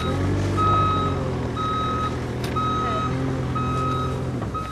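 A vehicle's reversing alarm beeping about once a second, each beep about half a second long, over an engine running at idle that drops away near the end.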